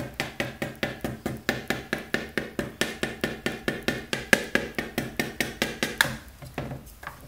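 Metal flour sifter knocked rapidly and steadily against the rim of a plastic mixing bowl, about six knocks a second, to shake flour through the fine mesh. The knocking stops about six seconds in.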